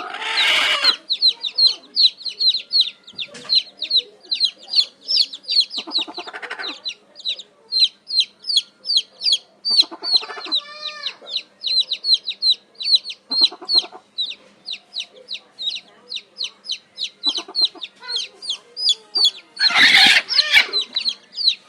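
Chicks peeping continuously in short high falling peeps, two to three a second, while a hen clucks now and then in lower calls. Two louder harsh bursts cut in, one near the start and one near the end.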